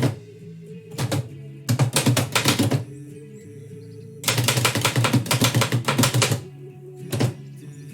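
1918 Oliver typewriter being typed on: a single key stroke about a second in, two quick runs of typing, and one more stroke near the end. Background music plays throughout.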